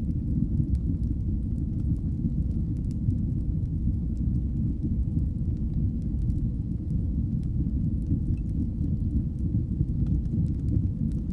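Wood fire burning in a fireplace: a steady low rumble of flames with faint, scattered crackles.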